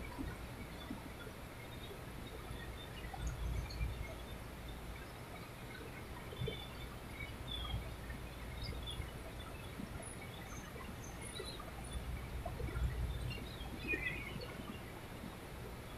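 Outdoor background noise: a low, uneven rumble that swells and fades, with faint, scattered bird chirps.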